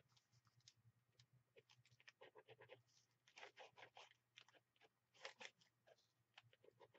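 Faint scratching of a gel pen drawing quick short strokes on a painted paper journal page, in irregular clusters over a faint low hum.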